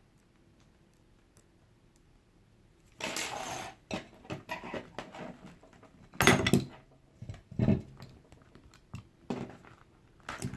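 Small metal parts of a disassembled padlock being handled on a hard surface: a brief scraping rustle about three seconds in, then scattered clicks and a sharp metallic clack about six seconds in, with lighter clicks after.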